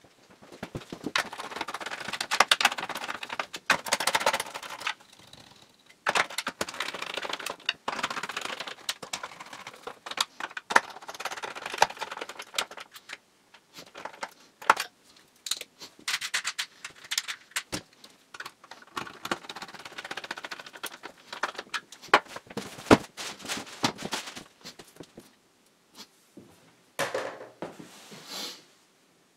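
Irregular clicking, rattling and rustling from hands handling the wiring and parts of an open loudspeaker electronics chassis, in clusters of a few seconds with short pauses between them.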